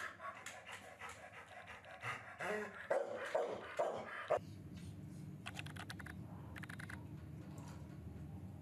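A dog panting in quick short breaths, about four a second, with a brief whimper midway. The panting cuts off suddenly a little over four seconds in, leaving a steady low hum with two short runs of rapid clicking.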